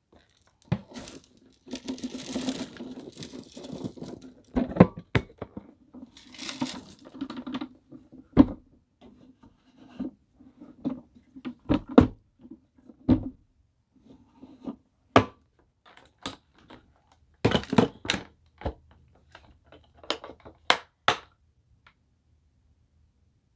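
A vacuum cleaner and its parts being handled with the motor off: irregular clicks, knocks and scrapes of hard plastic, a dozen or more separate sharp knocks, dying away near the end.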